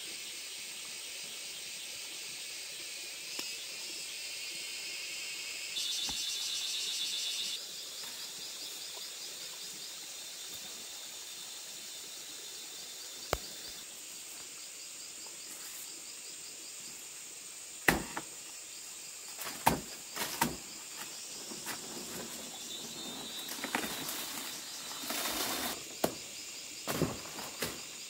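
Steady high hiss with a fine pulsing chirr, which swells for a couple of seconds about six seconds in. In the second half, a string of sharp clicks and knocks.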